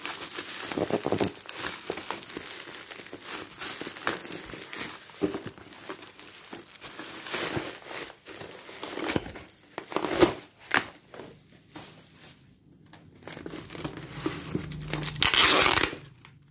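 Plastic bubble-wrap packaging crinkling and rustling as it is handled and pulled apart, with irregular crackles. There are louder rustles about ten seconds in and near the end.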